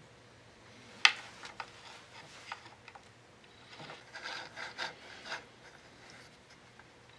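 Screwdriver work on a chainsaw's ignition coil screw, fastening an ignition chip onto the coil. There is a sharp click about a second in and a few lighter clicks, then a cluster of scraping and tapping near the middle.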